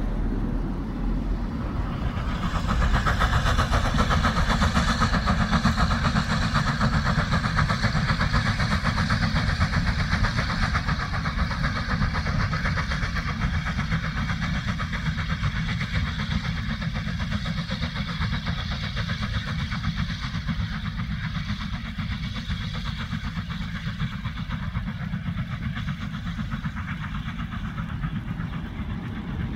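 Steam locomotive hauling a passenger train past, working hard under steam, with the running of the train on the rails. Loudest a few seconds in, then slowly fading as it draws away.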